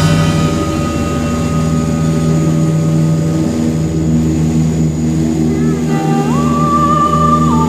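Background music: a sustained passage of held, droning notes, with a high note that slides up about six seconds in and drops back near the end.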